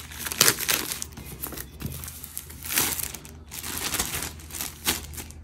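Plastic wrapper being pulled off a product box and crumpled, giving irregular crinkling and rustling with a few louder bursts.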